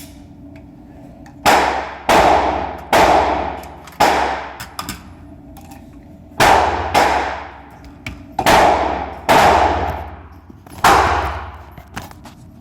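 AR-15 rifle fitted with a fake suppressor firing nine semi-automatic shots at uneven intervals, some in quick pairs, each report ringing off over about half a second.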